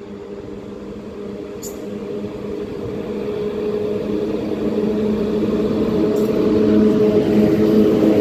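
PKP Cargo ET41 twin-section electric locomotive hauling a freight train of car-carrier wagons as it approaches and passes: a steady electric hum from its motors and blowers over the rumble of wheels on rail, growing louder throughout.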